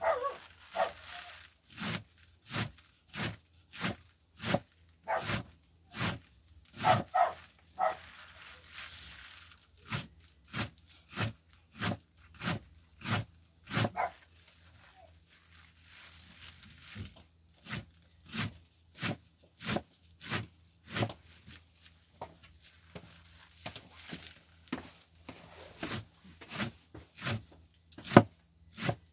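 Sharp knife shredding cabbage on a cutting board: a steady run of crisp chopping strokes, about two a second, with a short lull about halfway through.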